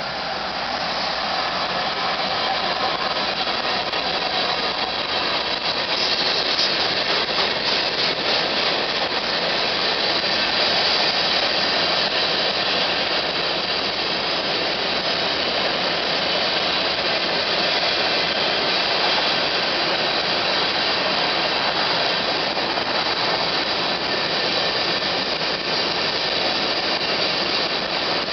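Kansas City Southern freight train passing close by: the diesel locomotive goes by at the start, then a long string of covered hopper cars rolls past with a steady noise of wheels on the rails.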